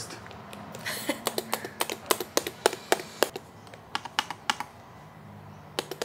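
Keys of a low-profile mechanical keyboard pressed by a toddler's fingers: an uneven run of clacks, a few a second, that tails off after about four seconds and picks up again near the end.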